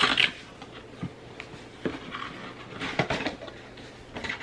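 Cardboard box being opened and handled: the lid and inner flaps scrape and tap against the box in a few short separate bursts, the loudest right at the start.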